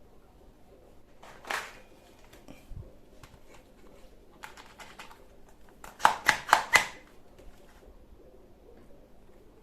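Sharp clicks and clatter of hard objects being handled, with a quick run of four loud clacks about six seconds in.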